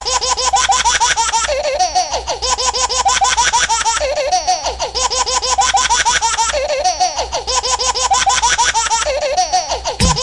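Baby laughing in a ringtone: quick bursts of giggling in a fast, even pulse, with the same short phrase looping about every two and a half seconds.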